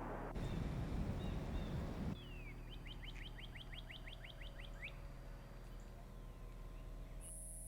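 A low rumble for about two seconds that cuts off sharply, then a bird trilling a quick run of about a dozen falling notes. A steady high-pitched whine starts near the end.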